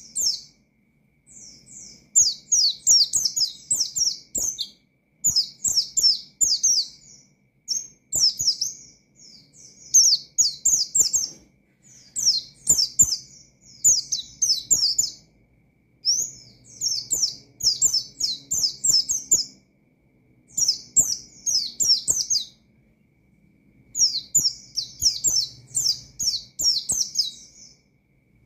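White-eye (pleci) singing loud, fast phrases of high chirps, one phrase after another with short pauses between them: a vigorous song of the kind used to challenge and provoke rival white-eyes.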